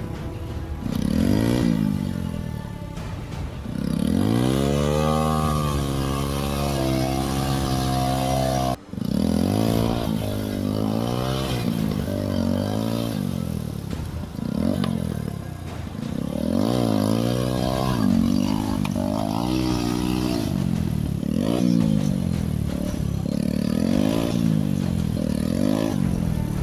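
TVS Apache RTR 160's single-cylinder four-stroke engine revved hard again and again, the pitch climbing and dropping with each blip, as the rear wheel spins in mud and water trying to pull the stuck bike free. One long rise is held at high revs, then shorter revs follow every second or two.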